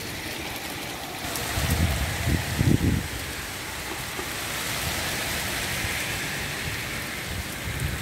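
Heavy rain pouring onto pavement and parked cars, a steady rushing hiss, with a few brief low rumbles about two seconds in.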